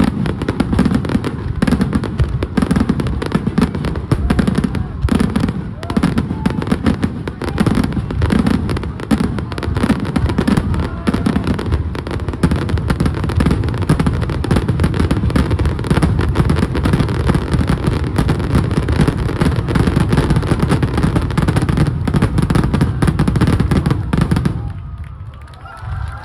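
Fireworks in a rapid, continuous barrage of shell bursts, booming and crackling without pause, dying away abruptly near the end.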